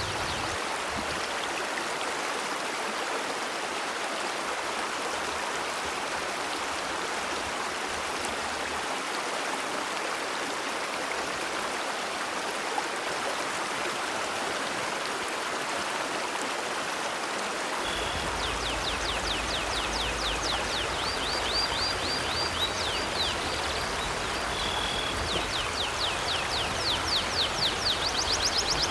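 River water flowing with a steady rushing noise. From about two-thirds of the way in, a bird chirps in quick series of short downward-sweeping notes, louder near the end.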